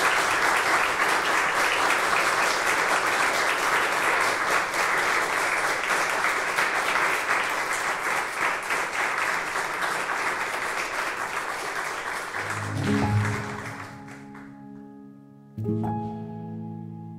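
Audience applauding, thinning out after about thirteen seconds. Slow piano chords then begin, ringing on, with a new chord about three seconds later.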